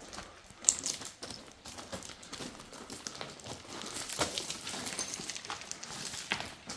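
Footsteps crunching on loose gravel and stones: irregular small crunches and clicks.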